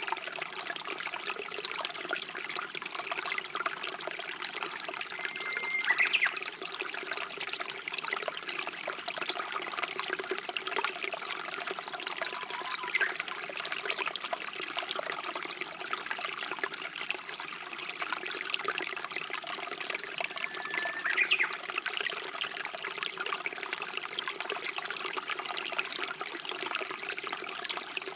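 A small stream or brook trickling and burbling steadily. A Japanese bush warbler sings over it, each song a held whistle that breaks into a quick rising flourish, about six seconds in and again about two-thirds of the way through.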